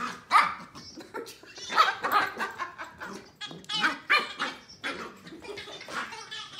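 Pembroke Welsh Corgi puppy barking repeatedly in short barks while playing.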